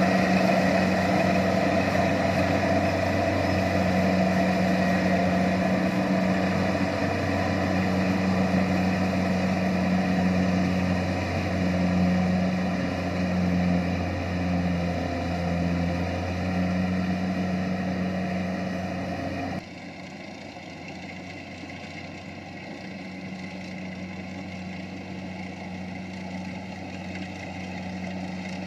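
Kubota rice combine harvester's diesel engine running steadily with a constant low hum. About two-thirds of the way through, the sound suddenly drops to a quieter, duller level.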